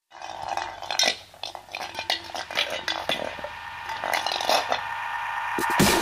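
A metal dog bowl clinking and scraping on asphalt as a puppy noses and pushes it around, in short irregular clatters.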